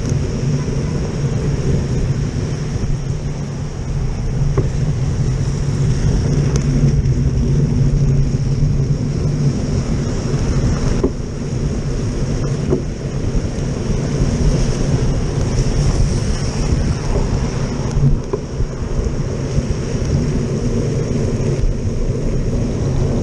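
Steady wind noise on the microphone with the hiss of bicycle tyres on a rain-soaked road, as a bike is ridden through the wet.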